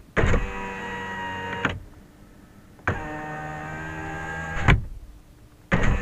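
Car power window motor running as the glass travels, a steady whine lasting under two seconds each time and ending in a clunk as the glass reaches its stop. Two full runs, and a third starts near the end.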